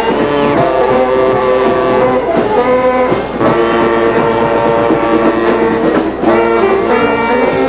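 Mummers string band playing, saxophones carrying the tune over plucked strings, in held notes grouped into phrases with short breaks between them.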